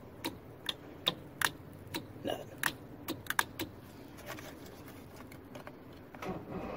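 Sharp, irregular clicks and clacks of an outboard's remote throttle/shift control lever being worked through its detents. Near the end the key is turned and the Mercury outboard's starter begins cranking the engine over.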